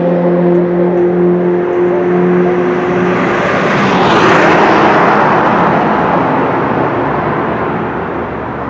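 A sports car passing at speed on a race track straight. A steady engine note carries for about three seconds, then a loud rush of the car going by peaks about four seconds in and falls in pitch as it fades away.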